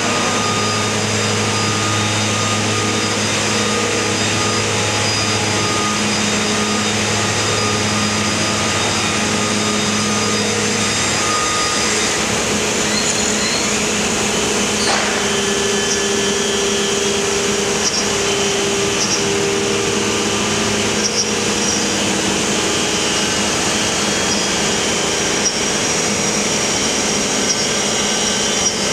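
1995 Morbidelli Author 504 pot-and-rail CNC router machining a wood panel, its spindle and dust extraction running together as a loud, steady machine noise. The tones inside the noise shift in pitch as the cutting head works across the panel.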